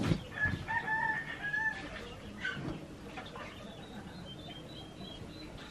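A rooster crowing once, a call of about a second and a half near the start, with faint high chirps of small birds later on and a few soft knocks and rustles of handling.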